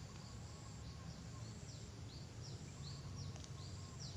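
Faint outdoor ambience: a bird calls with a series of short, quick descending chirps, more frequent in the second half, over a steady low rumble and a thin, steady high-pitched insect-like whine.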